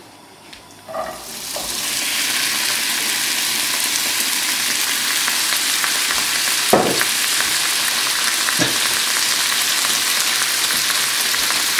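Chopped peppers, courgette and onion in olive oil sizzling in a hot frying pan. A knock about a second in, then the hiss builds and holds steady and loud.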